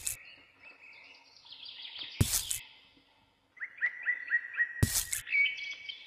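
Small birds chirping and twittering steadily, with two short, sharp knocks about two and a half seconds apart as miniature plastic shrubs are set down on the model's sand base.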